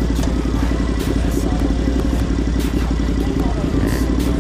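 Sport motorcycle engine idling steadily, with other motorcycles running around it.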